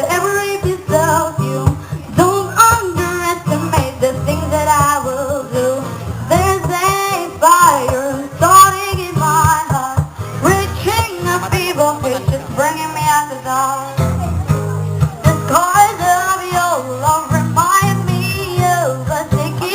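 A song with a singing voice over bass and guitar, played loud through a mobile DJ sound system during a sound check.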